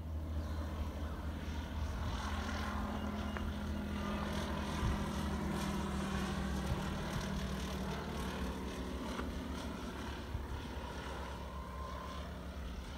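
Light single-engine propeller plane climbing out overhead, its engine and propeller droning with a steady low hum, slightly louder through the middle and easing off near the end as it moves away.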